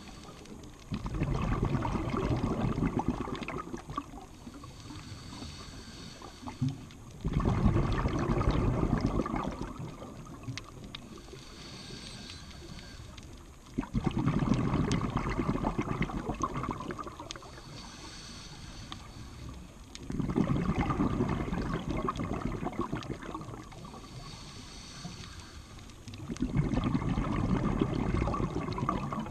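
Scuba diver breathing through a regulator underwater: a rumbling burst of exhaled bubbles about every six seconds, five in all, with a faint hiss of inhaling in between.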